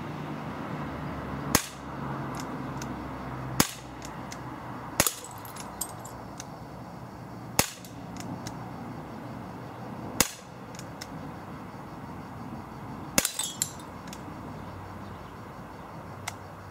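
Beretta PX4 Storm .177 CO2 air pistol firing six single shots, two to three seconds apart, at a glass beer bottle. After the third and the last shot comes a short run of smaller clicks and clinks.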